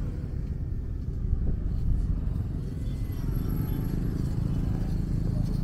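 Low, steady rumble of road traffic along a city street.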